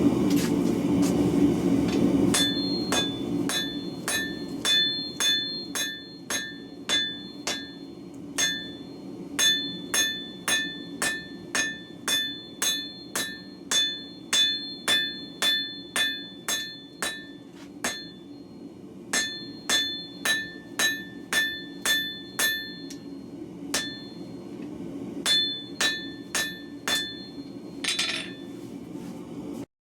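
Hammer blows on a bar of hot W2 steel on an anvil, drawing it out, about two strikes a second in runs broken by short pauses, each blow leaving a clear metallic ring. A steady low roar runs underneath, loudest at the start.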